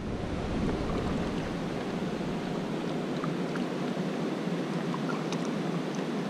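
Steady outdoor rushing noise, with a few faint ticks.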